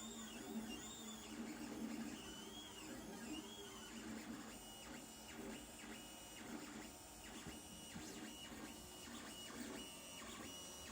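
Lulzbot TAZ 2 3D printer's stepper motors whining as the axes move. For the first few seconds the pitch rises and falls in short arcs; from about four seconds in, a steadier whine switches on and off in quick, even back-and-forth moves, over a low steady hum.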